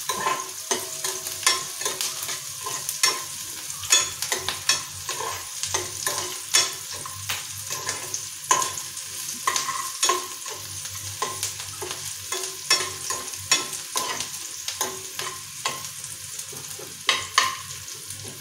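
Sliced onions sizzling in oil in a frying pan, stirred with a metal spatula that scrapes and knocks against the pan at irregular intervals, a knock every second or so.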